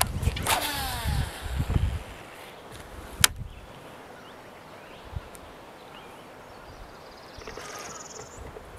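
A cast on a breezy lake: wind buffets the microphone while fishing line whirs off the reel spool in a falling whine. A sharp click comes about three seconds in, and a faint reel whir near the end as the line is wound back.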